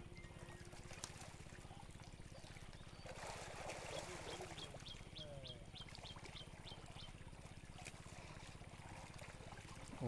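Faint sloshing and splashing of pond water as catfish are scooped out of a seine net with a hand net, loudest about three to five seconds in. A run of about ten short high chirps comes in over the middle.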